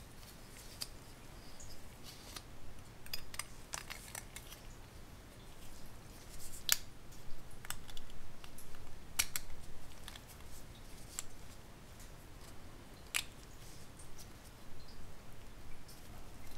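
Light clicks and scrapes of a small metal hand tool working on small pressed-metal toy parts, with three sharper clicks about a third, halfway and three-quarters of the way through.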